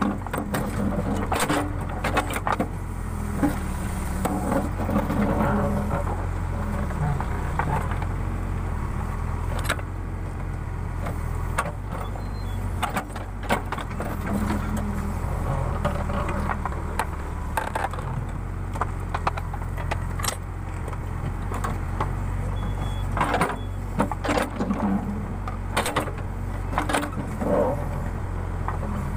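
Case 580 Super K backhoe loader's diesel engine running steadily under digging work, with repeated sharp clanks and knocks from the working bucket and arm.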